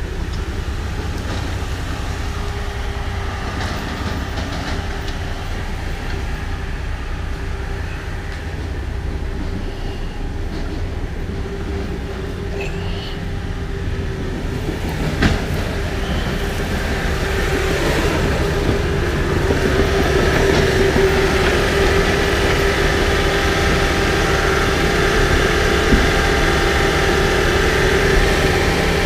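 Heavy diesel engine of a tracked crawler tractor running under load, a steady drone that grows louder from about halfway on. One sharp knock about halfway through.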